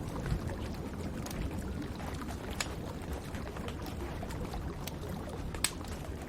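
Wood fire in a fireplace crackling, with scattered sharp pops (the loudest about two and a half and five and a half seconds in) over a steady low rushing noise.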